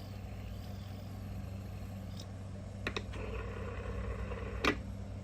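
Fidget spinner's bearing spinning, freshly cleaned with alcohol and dried, with the grinding gone: the roughness was only dirt in the bearing. A couple of light clicks sound about three and four and a half seconds in.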